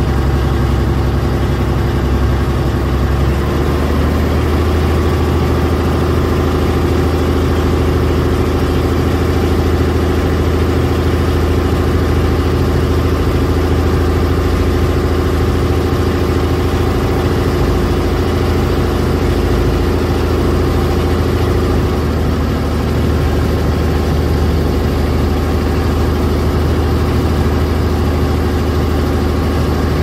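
Ferry boat engine running steadily, with a low, even throb; its pitch steps up slightly about three seconds in and then holds.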